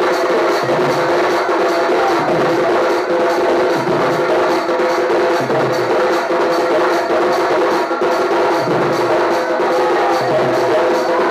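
Folk drum-and-pipe ensemble playing: barrel drums beaten with sticks in a fast, driving rhythm, with a deeper stroke about every second and a half, under a reed pipe holding steady, sustained notes.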